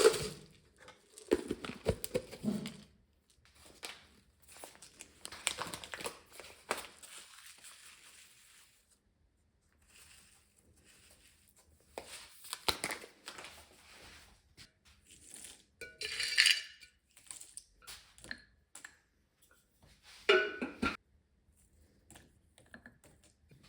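Household handling sounds: scattered light clinks and knocks, like dishes and cutlery being moved, mixed with rustling and crinkling. They come in irregular bunches, with short quiet gaps between.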